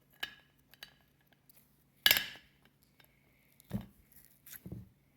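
Clicks and knocks of a plastic slime container being handled and opened, with one loud sharp knock about two seconds in and two duller thumps near the end.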